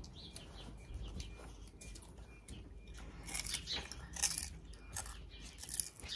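Quiet garden ambience: faint birds chirping over a low rumble, with a few short crunchy, rustling bursts about three to six seconds in as children eat.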